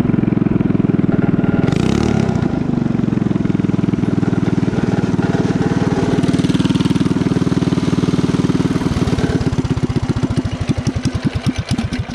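Small single-cylinder pocket bike engine running steadily, then its firing slows into separate pops from about nine seconds in as the engine winds down and dies near the end.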